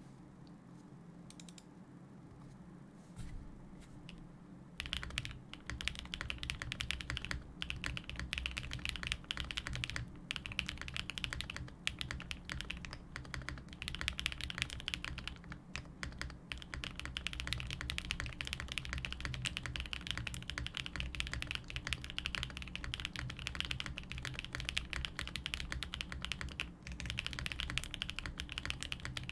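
Mode Sonnet custom mechanical keyboard being typed on fast and continuously, its Flower Shadow linear switches lubed with 205g0 and filmed, with foam under the PCB. A few light key presses at first, then steady rapid typing from about five seconds in, with short pauses.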